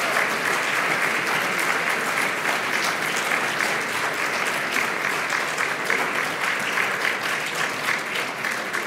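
Audience applauding, a dense steady clapping that slowly softens toward the end.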